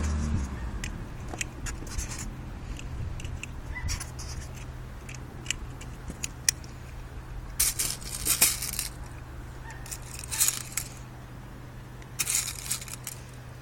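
Small metallic clicks and rattles of steel BBs and cartridges being handled while a Dan Wesson 4.5 mm BB revolver is reloaded, with a few brief scraping, rustling bursts.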